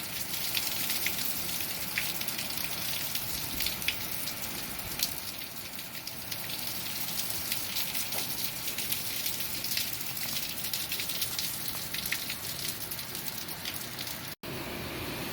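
Heavy storm rain pelting down, with many sharp drop impacts close to the microphone. The sound cuts out for an instant near the end.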